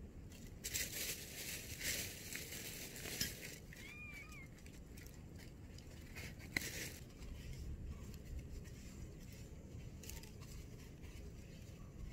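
Rustling and crinkling for a few seconds near the start, then one short faint chirp about four seconds in and a single sharp click a little later, over a steady low outdoor rumble.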